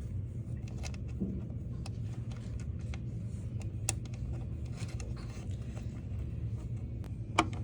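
Steady low hum with a few faint, sharp clicks of small nuts and screws being handled and threaded on by hand.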